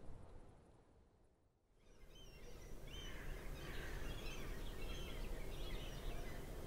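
Outdoor ambience fades almost to silence, then returns about two seconds in as a steady low background rumble with many small birds chirping and twittering over it.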